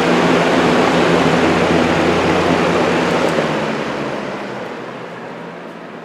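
Box fan running with its air rushing through the fins of a radiator mounted on its front: a steady rush with a low hum underneath, fading over the last two seconds or so.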